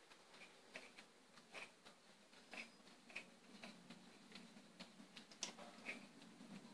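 Faint, short clicks, about two a second, from the spark-plug socket wrench as a new spark plug is screwed into the cylinder head.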